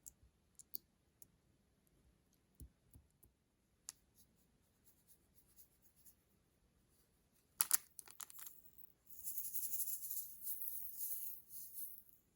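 Close-up handling of makeup and slime: scattered sharp clicks and taps, a quick flurry of clicks about eight seconds in, then about three seconds of fine, crisp crackling.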